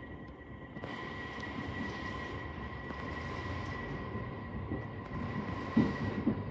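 Inside the passenger car of a JR East E231 series electric commuter train: a steady hum with two steady tones and even background noise. A single knock comes near the end.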